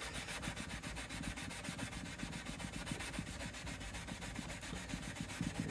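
Steel wool scrubbing a Martin acoustic guitar's fretboard and frets with quick, even back-and-forth strokes, cleaning the board and polishing the frets.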